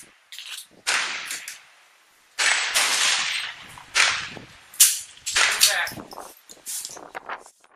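Strong gusting wind battering the microphone in repeated rough blasts, with a .22 rimfire rifle shot cracking out about two-thirds of the way through.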